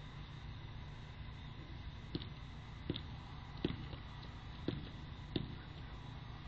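Steady hiss and low hum from a security camera's microphone, with a faint high electronic whine. Five short, sharp clicks at irregular intervals come in the middle.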